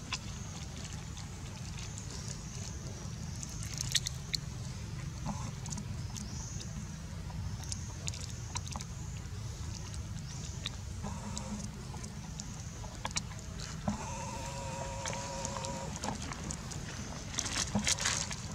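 Macaque handling a crinkly plastic snack bag: scattered rustles and crackles, with a burst of crinkling near the end, over a steady low rumble and a steady high hiss. About three-quarters through, a wavering pitched tone lasts about two seconds.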